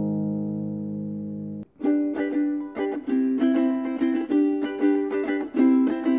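Background music. A held, fading chord cuts off abruptly about a second and a half in, then a light tune of short plucked string notes in a steady rhythm begins.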